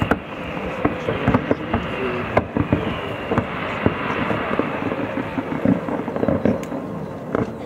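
Fireworks display going off: many sharp bangs and crackles, irregular and close together, over a steady rushing hiss from fountains and rising comets.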